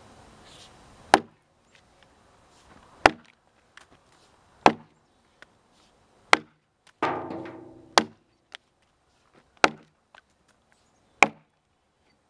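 Jersey-pattern axe chopping into a log to buck it: seven sharp strokes, about one every second and a half to two. A brief ringing noise dies away just after the fourth stroke.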